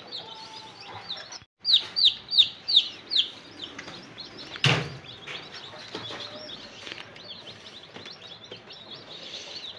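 Newly hatched chicks peeping, many short, high, falling calls over one another, with a run of about four loud peeps about two seconds in. A single knock sounds just before the five-second mark.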